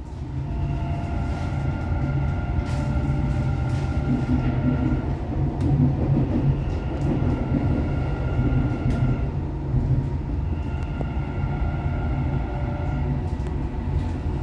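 Dubai Metro train heard from inside the lead car, running with a steady low rumble of wheels on rail and an electric motor whine that comes and goes every few seconds. Scattered sharp clicks come from the wheels as the train crosses the points into the station.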